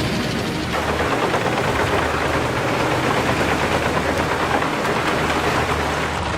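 Tractor-powered drum wood chipper running under load. About a second in, its steady engine drone is joined by a dense, rapid crackling clatter of wood being chipped.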